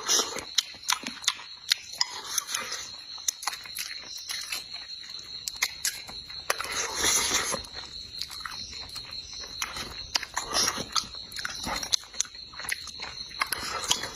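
A person chewing and smacking food close to the microphone, with many small wet mouth clicks and two louder noisy stretches, about seven and ten and a half seconds in.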